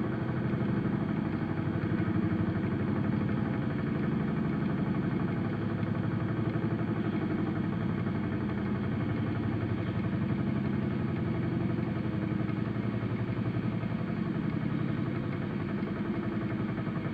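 Air raid siren running at low rotor speed, giving a steady low growl rather than a full wail.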